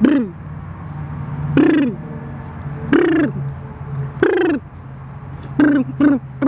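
Infant cooing in short, falling hoot-like sounds, spaced about a second apart and then four quicker ones near the end, over a steady low hum.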